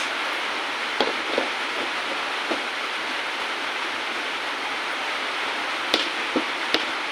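Steady hiss, with a few light clicks and knocks as a large plastic jar with a screw lid is handled, twice early on and a cluster of three near the end.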